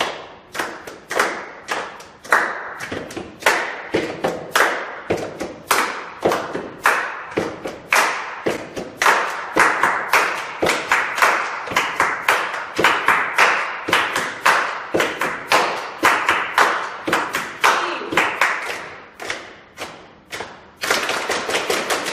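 Several people clapping their hands in a body-percussion rhythm, about two sharp strikes a second, with thuds among the claps. The strikes turn faster and denser near the end.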